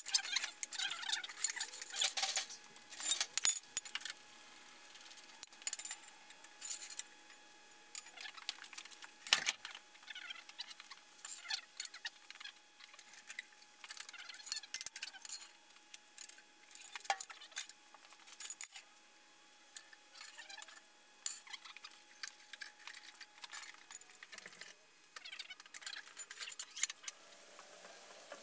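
Steel pipe rollers clinking and clanking irregularly on a concrete floor as a heavy milling machine is pushed and levered along them.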